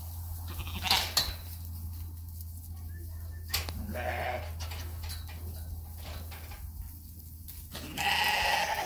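Dorper ewe lambs bleating, a short call about four seconds in and a louder one near the end, with a couple of sharp knocks about a second in, over a steady low hum.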